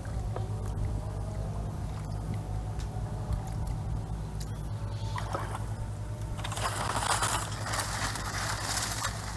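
Water sloshing and splashing over a steady low rumble, with a heavier stretch of splashing for a couple of seconds near the end.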